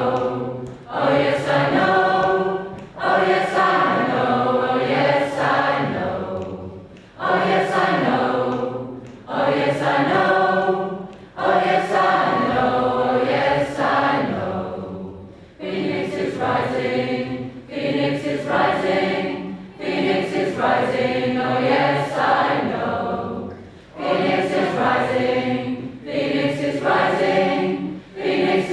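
A large choir, mostly women's voices, singing together in phrases of a few seconds with brief breaks between them.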